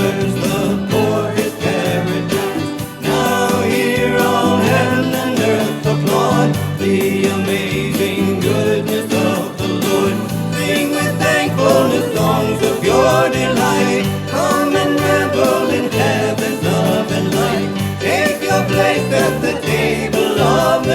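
Upbeat choral church music: a choir with instrumental accompaniment, playing steadily without a break.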